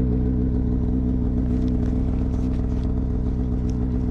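Snowmobile engine running steadily at an even pitch, with a few faint clicks in the middle.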